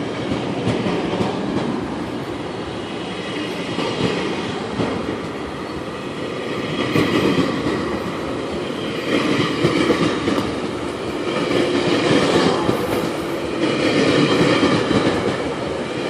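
Passenger train cars rolling past on the track, with the wheels clacking, the noise swelling and easing as each car goes by.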